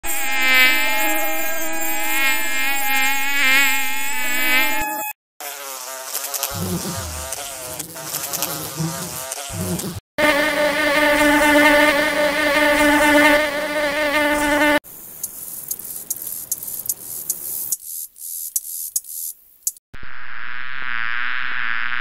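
A series of separate insect sound-effect clips, one after another. First a mosquito's whining buzz, then a lower, uneven housefly buzz, then a steady buzzing for the ladybug. Next comes a stretch of faint clicks and hiss, and a honey bee's buzz begins near the end.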